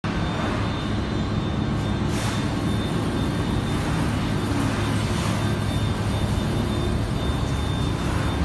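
Industrial tunnel washer running during commissioning: a steady mechanical hum with a constant high whine, and short hisses of air about two and five seconds in.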